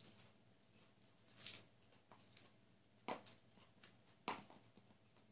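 Faint close-up eating sounds: a few short, soft clicks and crunches of chewing and handling food, two of them louder, about three and four seconds in.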